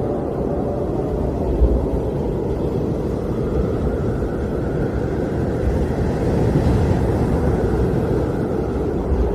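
Blizzard wind blowing, a deep steady rush that slowly swells and eases, with a gust building about two-thirds of the way through.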